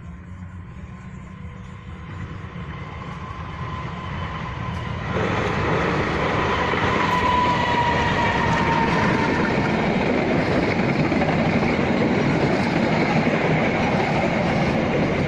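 A passenger train approaching and passing close by. A low rumble grows over the first five seconds, then the noise of the passing train jumps up suddenly and stays loud. A faint high tone dips slightly in pitch about seven seconds in.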